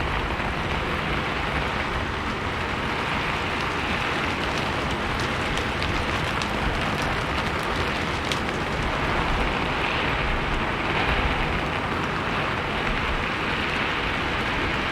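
Steady rain falling on a rooftop, an even hiss with scattered drop ticks.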